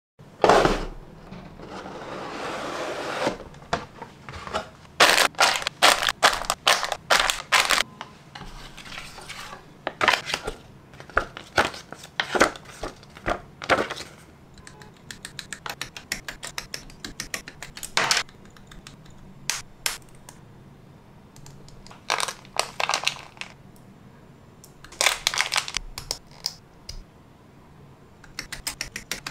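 Hands unpacking a plastic model kit: paper and plastic packaging rustling and crinkling, with many sharp clicks and taps of parts and box. A longer rustle comes in the first few seconds, then bursts of quick clicks, with a quieter spell in the middle.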